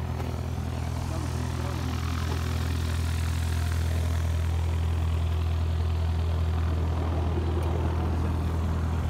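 An engine idling steadily: a low, even drone that grows slightly louder about three seconds in, with faint voices in the background.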